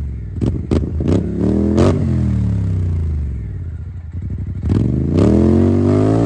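2023 Polaris Scrambler XP 1000 S ATV's twin-cylinder engine being revved through a freshly installed HMF dual exhaust. It gives several quick, sharp throttle blips in the first two seconds and drops back to idle, then a longer rev climbs near the end.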